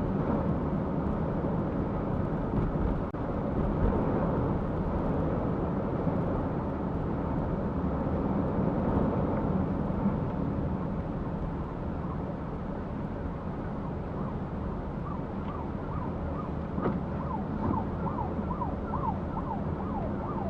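Steady road and engine noise inside a moving car. In the last few seconds an emergency vehicle's siren comes in as a fast yelp, rising and falling about two or three times a second.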